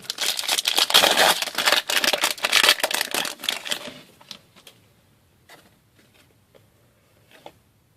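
A foil trading-card pack wrapper being torn open and crinkled for about four seconds, then a few light clicks as the cards are handled.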